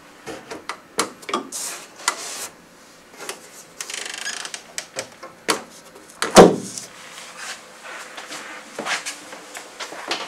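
Wooden cabinet doors being opened and shut by their handles: a series of clicks, knocks and rubbing, with one loud knock about six seconds in.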